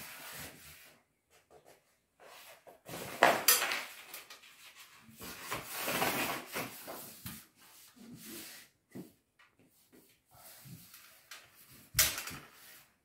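Non-woven wallpaper strip rustling and crackling against the wall as it is positioned and smoothed flat by hand, in irregular bursts, with a short sharp crackle near the end.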